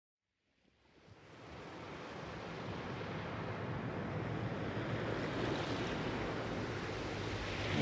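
A soft rushing noise fades in from silence about a second in and swells steadily louder. It is an intro sound effect of the kind used under an animated title.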